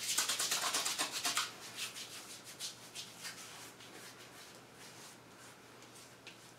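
Hands rubbing aftershave quickly together, then rubbing it onto the neck and face. The strokes are dense for about the first second and a half, then become sparser and fainter.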